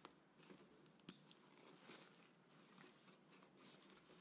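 Faint handling of a nylon camera shoulder bag as its lid is opened: one sharp plastic click about a second in, from the front side-release buckle being unclipped, among soft fabric rustling.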